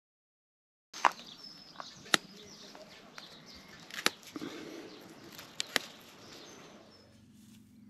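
Dandelion flower heads being picked by hand: five sharp snaps of stems breaking off over a light rustle of leaves, starting about a second in, with faint bird chirps in the background.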